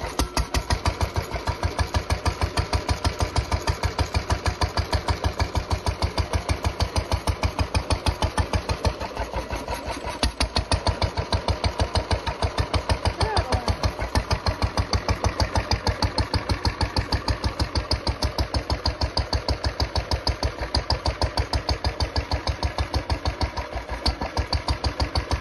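Lister type D single-cylinder four-stroke petrol stationary engine running steadily with a rapid, even firing beat, which softens briefly about nine seconds in. It runs with some mechanical clatter that the owner thinks is tappet noise.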